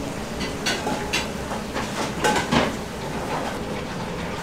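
Busy kitchen background: a steady hum with several sharp clicks and knocks, like utensils and dishes, in the first two and a half seconds.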